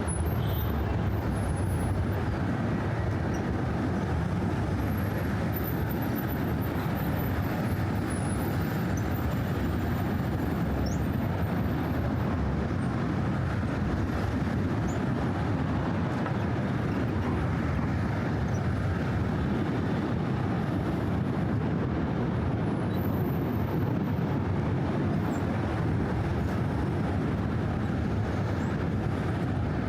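Steady traffic noise from cars and trucks on the Brooklyn Bridge roadway, a continuous even rumble with no single vehicle standing out.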